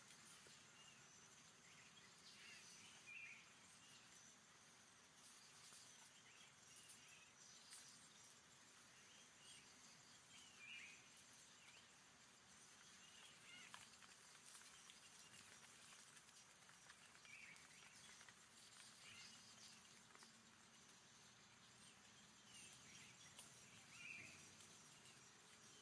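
Faint forest ambience: a steady high insect hiss with short bird chirps every few seconds.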